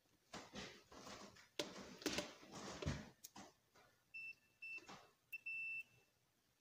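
Rustling and clicks of multimeter probe leads being handled, then the meter's continuity buzzer sounding a steady high beep three times in the last few seconds, broken up as the probes make and lose contact with the fuse. The beep means the fuse conducts: it is intact.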